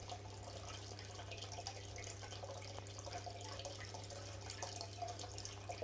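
Aquarium filter trickling water, with a steady low hum underneath. Faint rustles and small clicks of pothos leaves and coir fibre being handled.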